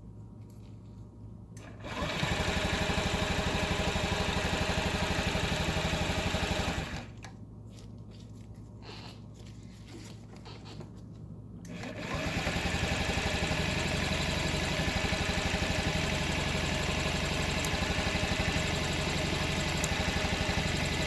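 2012 Honda Ruckus's 49cc four-stroke engine turned over by the electric starter, in two long bursts of steady, fast cranking (about five seconds, then about nine) that never catch and fire. It is a no-start with spark and fuel present, which the owner traced to a badly gummed carburetor.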